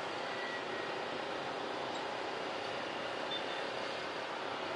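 Jet airliner engines running steadily at low power while the aircraft taxi, heard as an even, unbroken rush of noise with faint steady tones in it.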